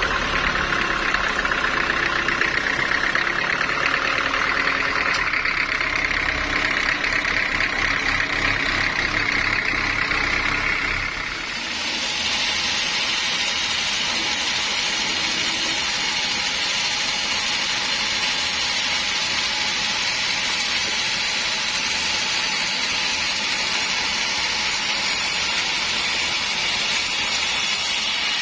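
Sawmill machinery running loud and steady: a low rhythmic rumble with a steady whine above it, then about eleven seconds in the rumble falls away and an even hiss takes over.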